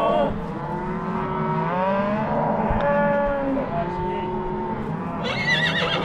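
A herd of cattle mooing, several long drawn-out calls one after another, some overlapping at different pitches.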